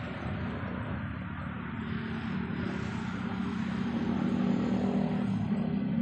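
A motor engine running steadily with a low hum, growing gradually louder through the second half.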